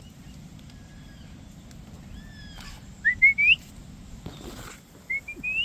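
Two short whistles, each rising in pitch in a few quick steps, about two seconds apart: someone whistling to call an animal over. A short rustle comes between them.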